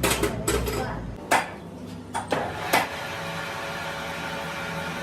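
Several sharp metal knocks and clinks, tools against metal parts, in the first three seconds, then a steady low hum.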